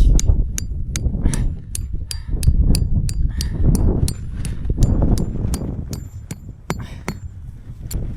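Metal tent stakes being hammered into the ground: a steady run of sharp strikes, about two to three a second, each with a short metallic ring. Wind rumbles on the microphone underneath.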